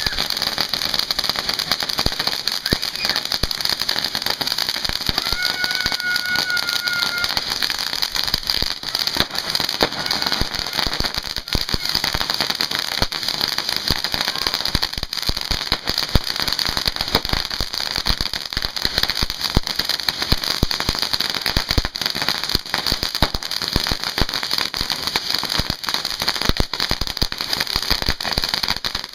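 Several ground fountain fireworks spraying sparks together: a continuous hiss with dense, rapid crackling throughout. About five seconds in, a brief steady high whistle sounds over it for a second or so.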